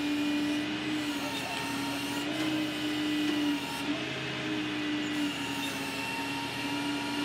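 Flatbed tow truck running with its hydraulic bed system engaged: a steady droning hum whose pitch steps slightly up and down a few times.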